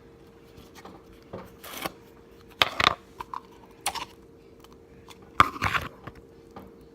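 Slime squished and pressed by hand, giving irregular sharp pops and crunchy crackles. The loudest clusters come about three seconds in and again around five and a half seconds.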